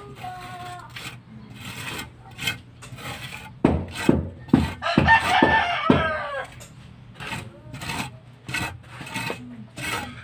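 A steel trowel scraping and knocking as it works cement mortar on a rough wall, in repeated short strokes. A rooster crows once about five seconds in.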